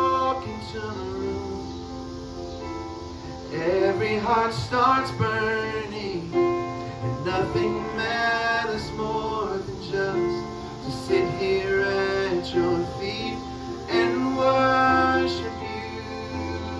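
A worship song sung by voices over a strummed guitar, in phrases.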